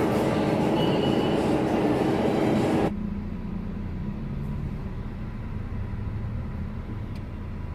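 A motor vehicle running, with steady road and engine noise. About three seconds in, the sound cuts abruptly to a quieter, steady low engine hum.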